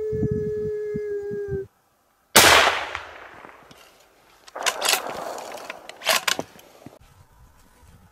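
A long, steady, drawn-out howl that stops about 1.7 seconds in. After a brief gap comes a single loud rifle shot at a coyote, whose report fades slowly, then a few quieter sharp cracks about two to four seconds later.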